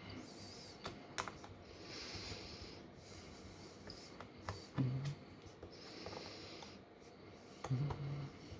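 Quiet clicks and small scrapes of a Phillips screwdriver and tools working on a smartphone's screws and parts, with a soft hiss that comes and goes every few seconds.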